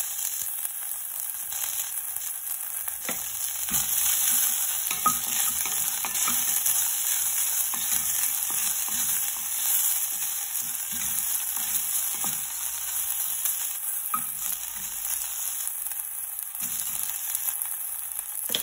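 Chopped garlic and ginger frying in a stainless steel saucepan, a steady sizzle, stirred now and then with a wooden spatula.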